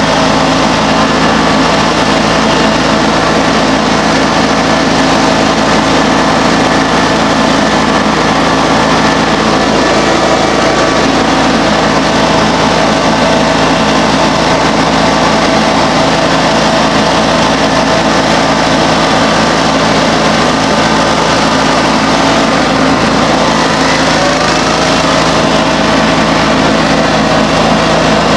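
John Deere X585 garden tractor's engine running steadily at an even pitch as the tractor drives along the road.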